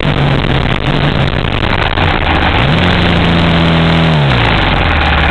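Dirt bike engine running under a loud rushing noise; about halfway through it revs up, holds briefly, then drops back toward a low steady idle near the end.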